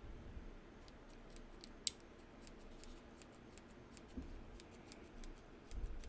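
Faint, irregular small clicks and ticks of a titanium mechanical pencil's parts being handled and fitted together, with one sharper click about two seconds in.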